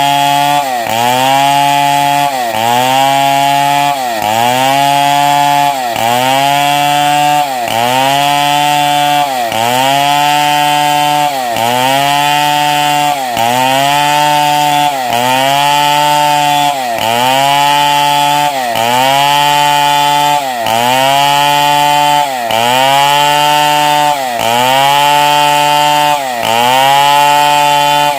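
Stihl 070 two-stroke chainsaw ripping lengthwise through a log at high revs. The engine pitch dips under load and climbs back in a steady cycle, about once every second and a half to two seconds.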